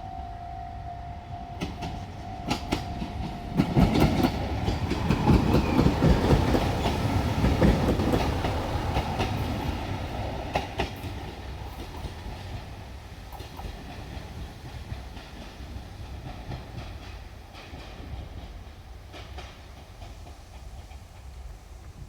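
Diesel train passing over a level crossing, its wheels clacking over the rail joints, loudest from about four to ten seconds in and then fading away. A steady level-crossing warning tone sounds until the train arrives, about three and a half seconds in.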